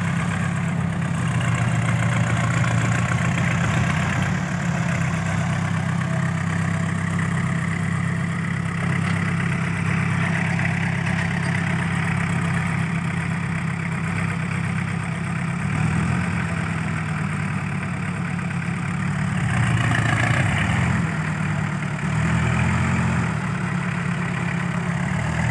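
Engine of a homemade farm truck running steadily while the truck is stuck in deep mud, its pitch shifting up and down a few times in the second half as it is worked harder.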